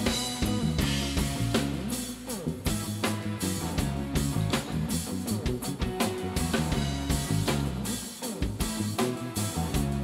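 Live instrumental rock from electric guitars and a drum kit, playing a steady groove without vocals.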